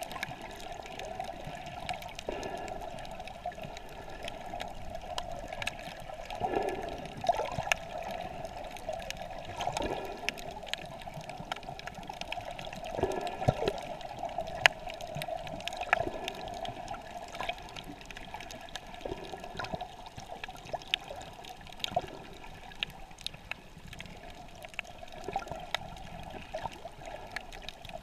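Shallow-sea ambience heard with the microphone underwater: a steady, muffled wash of moving water, with scattered sharp clicks and crackles throughout.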